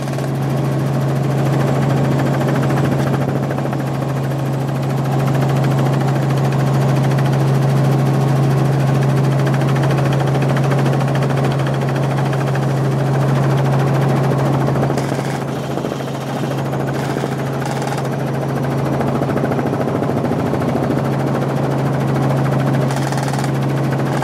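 Helicopter engine and rotor noise heard inside the cabin in flight: a loud, steady drone with one strong constant low hum, dipping slightly about two thirds of the way through.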